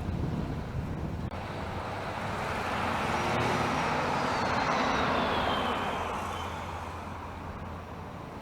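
A vehicle passes by: its road and engine noise swells over a few seconds and then fades away, with a faint falling squeal as it goes by, over a steady low hum.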